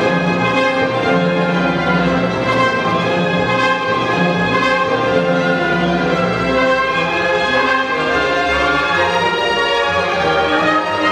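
Symphony orchestra playing a classical passage, the string section to the fore.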